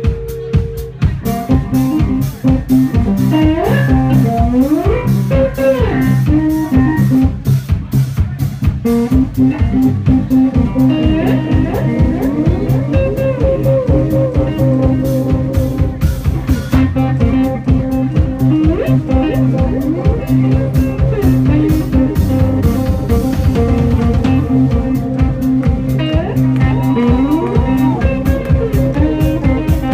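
Live blues-rock band playing an instrumental passage without vocals: electric guitar with bent and sliding notes over bass guitar and a drum kit.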